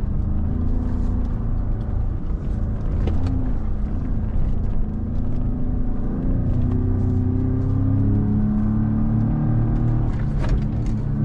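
2017 Ford Raptor's twin-turbo 3.5-litre EcoBoost V6 pulling under load off-road, heard inside the cab, its note stepping up about six seconds in. Scattered knocks and rattles come over bumps, most of them about ten seconds in.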